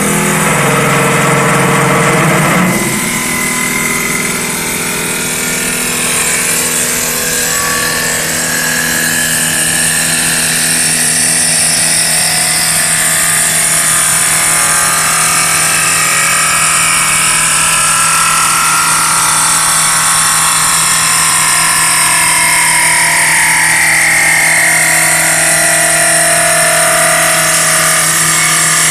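MC2036B automatic form-tool wood lathe turning a baseball bat from a square wooden blank. The motor hums steadily while the form knife shaves the spinning wood in a loud continuous cut, with faint tones in it that slowly drift up and down. The sound is heavier for the first three seconds, then settles.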